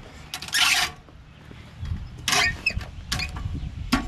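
Folding aluminium steps being pulled out and unfolded: a few sharp metal clanks and scrapes, the loudest about half a second in, then more around two and three seconds in and a click near the end.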